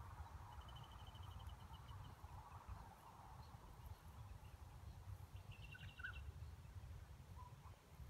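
Near silence outdoors: a low rumble of wind on the microphone, with a bird's short, faint high trill about half a second in and again near six seconds.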